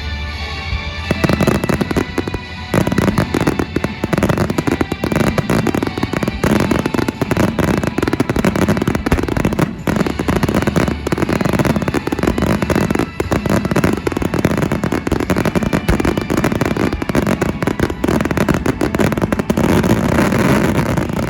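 Aerial fireworks going off in a rapid, continuous barrage of bangs and crackles, starting about a second in, with music playing alongside.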